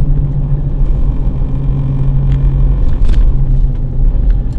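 Car engine and road noise heard from inside the cabin: a steady low rumble, with a couple of light clicks about two and three seconds in.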